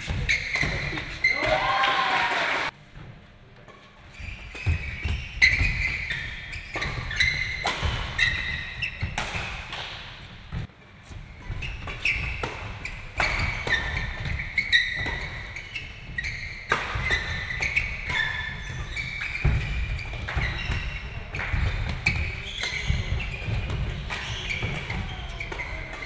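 Doubles badminton rally in a sports hall: sneakers squeaking sharply and repeatedly on the court floor, feet thudding, and rackets cracking against the shuttlecock.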